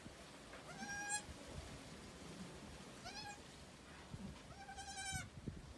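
Newborn goat kid bleating three times in high, thin calls; the last call is the longest.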